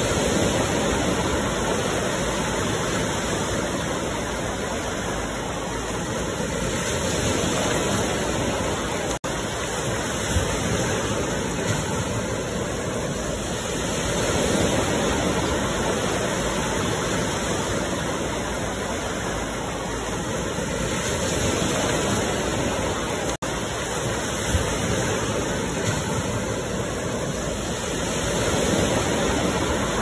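Ocean surf washing on a shore: a steady rush of breaking waves that swells and eases roughly every seven seconds. The sound cuts out for an instant twice, about a third of the way in and again past the three-quarter mark.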